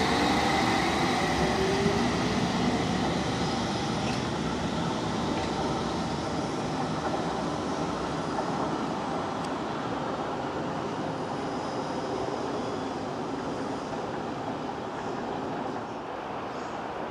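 London Underground S stock train pulling out and running away along the track. A faint motor whine rises in the first couple of seconds as it picks up speed, then the rumble of wheels on rail slowly fades as it draws off.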